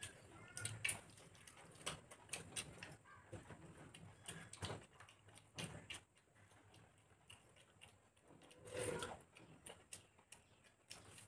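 Faint eating sounds of soft khichuri eaten by hand: scattered wet mouth clicks and lip smacks while chewing, with a slightly longer, louder smack about nine seconds in.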